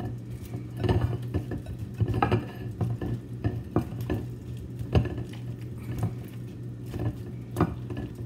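Cauliflower florets being stirred through batter in a bowl, with irregular clinks and knocks against the bowl. A steady low hum runs underneath.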